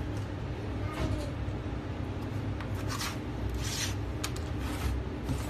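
Hands handling an LCD panel and loose polarizer film on a bench mat: several short rubbing and rustling strokes, most of them between about three and five seconds in, over a steady low hum.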